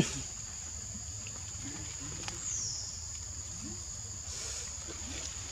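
Steady high-pitched insect drone in two even tones over a low rumble. A sharp click comes right at the start, and a short falling chirp about halfway through.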